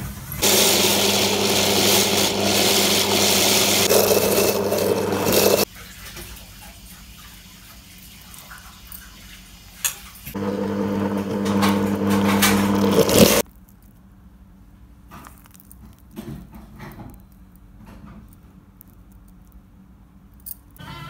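Electric mixer-grinder running twice, first for about five seconds and then for about three, with a steady whirring hum as it grinds soaked urad dal into batter. Quieter handling sounds fill the gaps between and after the runs.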